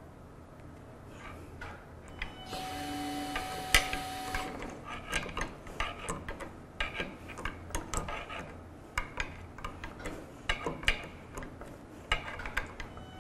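Ratchet strap being tightened in short strokes of its handle, the ratchet clicking irregularly while it tensions against the heavy robot arm. About two seconds in there is a couple of seconds of steady hissing noise with a faint hum.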